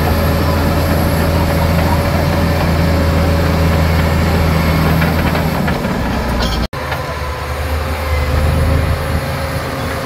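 Heavy diesel earthmoving machine running: a steady low engine drone with a thin whine on top. The sound cuts out for an instant about two-thirds of the way through and picks up again.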